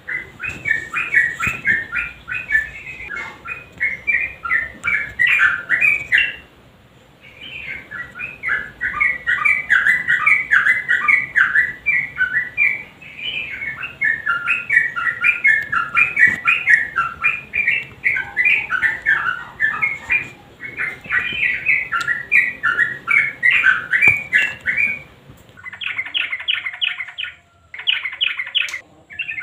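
Yellow-vented bulbul (trucukan) singing a rapid, continuous chattering song of bubbly notes, with a brief pause twice. Near the end it switches to short bursts of a fast, even rattling trill.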